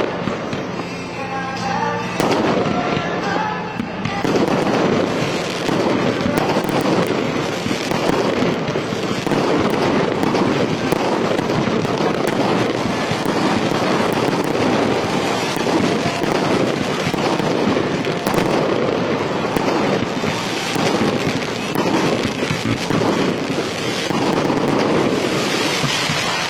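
Aerial fireworks going off in a dense, continuous barrage of bangs and crackling. Music plays underneath.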